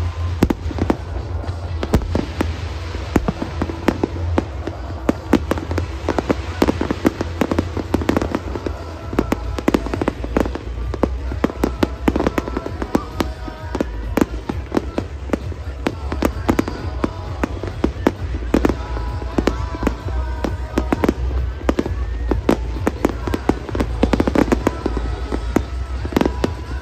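Fireworks display: aerial shells bursting in rapid succession, with many sharp bangs and crackles throughout. Music plays loudly underneath.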